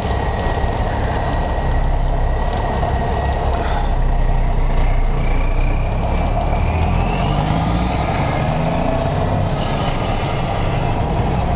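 Kenworth tow truck's diesel engine pulling under load, heard inside the cab, with a high turbo-like whistle rising as the engine climbs in revs and falling away after a gear change about nine and a half seconds in.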